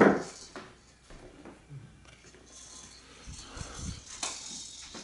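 Mostly quiet room with faint taps and rustles of toys being handled, after a brief louder sound right at the start.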